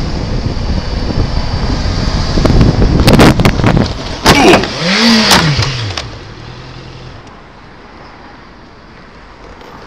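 Motorcycle collision with a car: riding noise, then from about two and a half seconds in a burst of clattering impacts and scraping as the bike is knocked down, with a brief tone rising and falling in pitch. After about six seconds it turns much quieter and steady.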